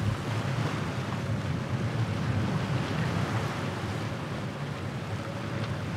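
Steady wind noise on the microphone over the continuous rush of the sea around a sailing catamaran under way.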